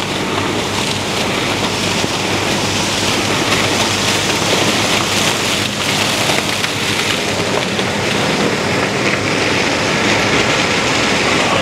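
Fendt Ideal 7T combine harvesting corn through a 12-row chopping corn head. A steady, loud engine drone sits under a dense rattle and hiss of stalks being cut, chopped and thrown out as residue.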